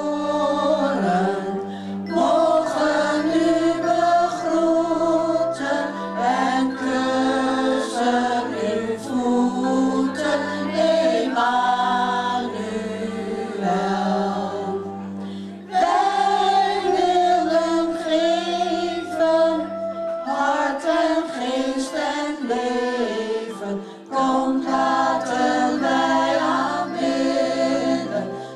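A small group of women singing together into microphones, amplified, over an electronic keyboard playing steady bass notes and chords.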